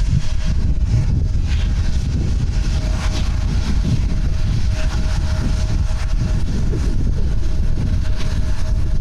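Jet airliner engines running with a steady low rumble and a thin steady whine, with wind on the microphone.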